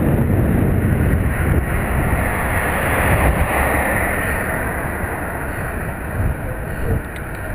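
Wind buffeting the microphone of a moving bicycle, a low rumble under a rushing hiss that swells about three seconds in and then eases off.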